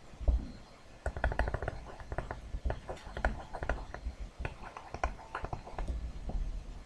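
Stylus tapping and scratching on a tablet PC screen while writing: an irregular run of short clicks with dull knocks beneath, from about a second in until near the end.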